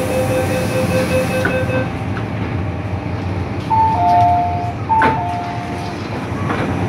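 MTR M-Train door warning: a rapid beeping tone that stops about two seconds in as the doors shut, then a falling two-note chime sounds twice, with a sharp knock at the second chime, over the steady hum of the train interior.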